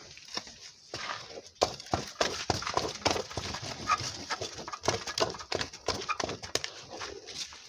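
Wooden turning stick knocking and scraping against a metal pot as thick fufu dough is stirred hard. A few scattered knocks at first, then a fast, uneven clatter from about a second and a half in.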